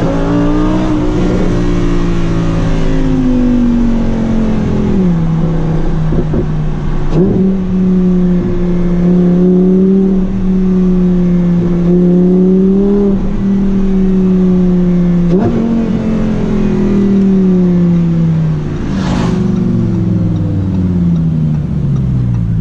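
Lamborghini Huracán Performante's V10 engine running loudly at low-to-middle revs. Its pitch jumps up and down suddenly with gear changes and sags slowly between them, falling away steadily as it eases off near the end. There is one brief sharp noise late on.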